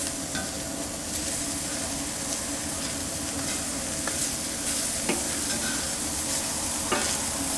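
Pork tenderloin slices sizzling steadily on a hot, seasoned cast-iron plancha, with a few sharp clicks of metal tongs against the iron as the slices are flipped.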